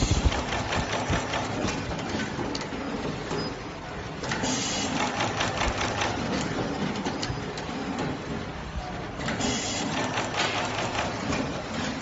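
Cable core stripping and crimping machine at work: rapid mechanical clicking and clacking, with a sharp knock at the very start and two short bursts of hissing noise, about four and nine seconds in.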